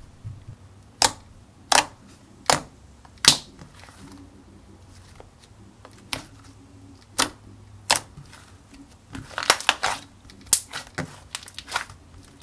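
Thick, glossy bubblegum slime being poked and squeezed by fingers, giving sharp clicking pops as trapped air bursts. The clicks come singly about once a second at first, then faster in a cluster near the end.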